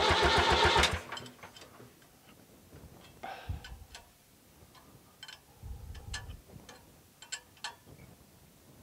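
David Brown 990 tractor's four-cylinder diesel engine cranking over rhythmically on its starter without firing, to bleed air and bring diesel up to the cracked-open injector lines. The cranking stops about a second in, and light scattered clicks and ticks follow.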